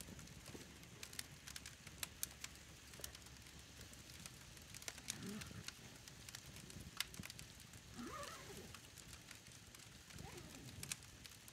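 Campfire crackling faintly, with many irregular sharp snaps. Faint voices come and go in the background.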